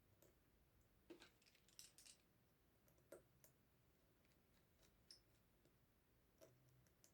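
Near silence broken by a few faint, sharp metallic clicks and ticks of small screws and a screwdriver being handled while screws are refitted into a projector lens barrel.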